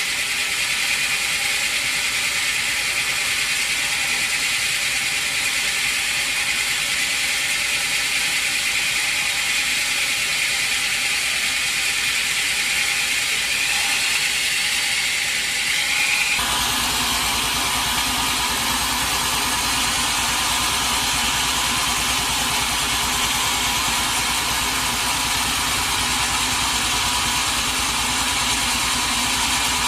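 Sawmill machinery running steadily, with a high whine and hiss that rises slightly just before the middle. About halfway through it switches abruptly to a lower, engine-like running sound.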